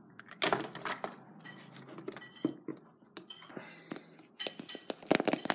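Hollow plastic surprise-egg capsules clicking and clacking as they are handled and pulled open: scattered sharp clicks, thickest near the end.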